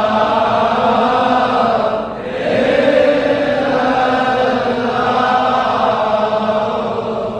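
Sufi zikr chanting: voices repeating a sung phrase in long held lines, with a brief break about two seconds in.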